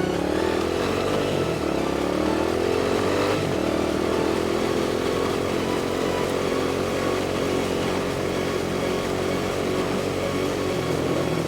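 ATV engine running under way, its pitch climbing near the start and then rising and falling with the throttle.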